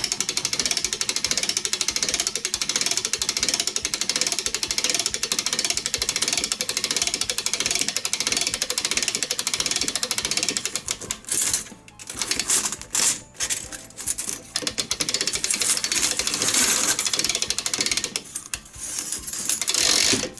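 Rapid ratchet clicking as a clock mainspring is slowly let down on a hand-cranked mainspring winder, the great wheel spinning. The clicking is continuous for about the first ten seconds, then comes in shorter runs with brief pauses.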